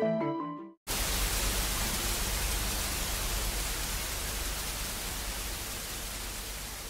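A steady hiss of static noise, like a detuned television, that starts abruptly about a second in and slowly fades. Just before it, the last notes of soft background music die away.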